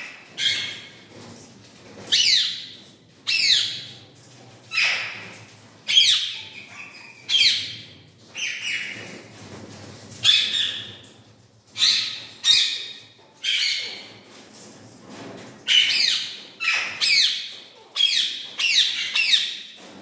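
Indian ringneck parakeets calling over and over in loud, harsh squawks. Each call sweeps down in pitch, and they come about one a second, often in quick runs of two or three.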